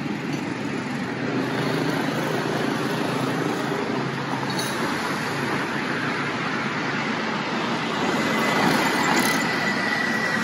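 Steady noise of road traffic on a town street, with a thin high tone coming in near the end.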